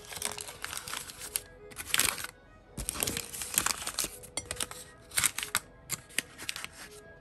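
Thin white wrapping paper crinkling as it is opened out by hand, in several irregular bursts of crackling, with soft background music underneath.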